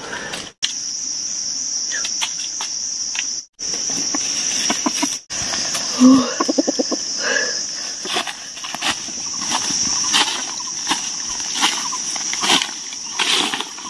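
Insects droning steadily in one continuous high-pitched band, with scattered crackles of dry leaf litter underfoot and from handling in the leaves.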